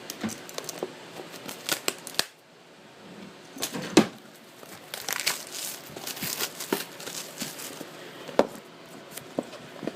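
Packaging of a card-game starter box being torn open and handled: crinkling and tearing of wrapping with scattered clicks and knocks, one sharp knock about four seconds in.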